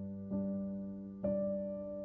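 Soft background piano music: slow chords struck about once a second, each left to ring and fade.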